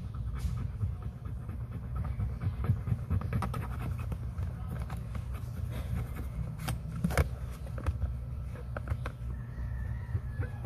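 Wooden toothpick scraping and ticking against a wet coin to work off stubborn rust, in short scratchy clicks over a steady low rumble.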